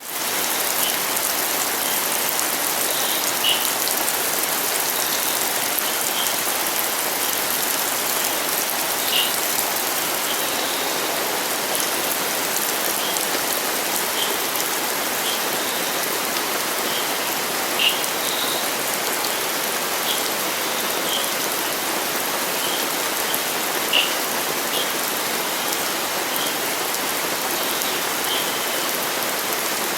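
Steady rain falling and pattering on surfaces. Short, high chirps or drips come through every second or two, a few of them louder.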